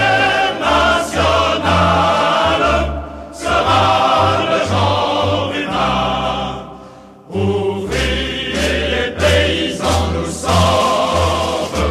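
Choral music: a choir singing long, sustained phrases over a low bass line, with brief pauses between phrases about three and seven seconds in.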